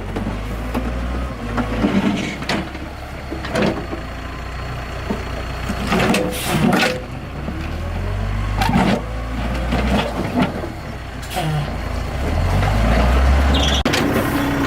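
Excavator diesel engine running with a low rumble that rises and falls, punctuated by a dozen or so sharp knocks and clanks.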